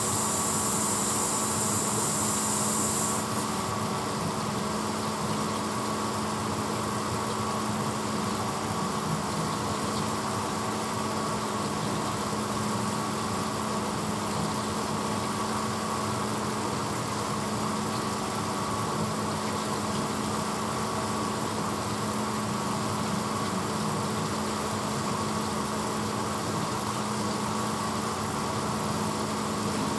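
A 1986 Hotpoint Potwasher dishwasher running, a steady motor hum. A high hiss drops away about three seconds in, and the hum carries on unchanged.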